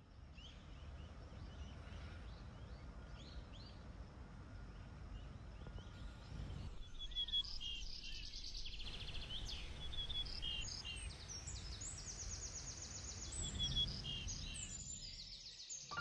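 Small birds chirping and trilling over a steady low rumble of outdoor background noise; the calls grow busier and louder about halfway through.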